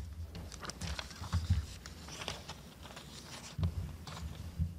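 Small scattered clicks and a few low thumps close to a lectern microphone: handling noise at the lectern.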